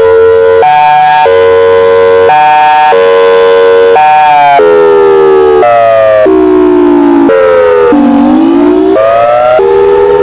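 Thunderbolt air-raid/tornado siren sounding loudly as a chord of tones. It jumps abruptly back and forth between a higher and a lower pitch, then slides down in pitch and winds back up near the end.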